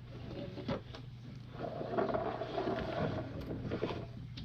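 Small plastic LEGO pieces clicking and rattling as they are handled and sorted, with a cluster of clatter in the middle, over a faint steady low hum.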